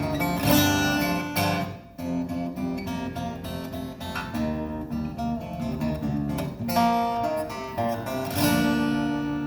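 Acoustic guitar playing plucked notes and chords. There is a brief break about two seconds in, and a chord struck near the end is left ringing.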